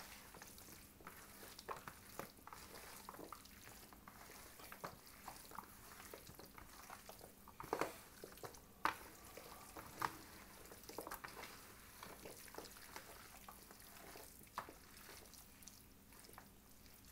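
Hands mixing raw chicken pieces in a curry marinade: faint wet squelches and small clicks, with a few louder knocks about eight and ten seconds in.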